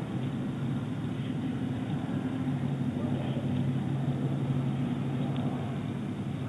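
Steady low drone of a distant engine, carrying a couple of steady hum tones, heard through a nest camera's microphone.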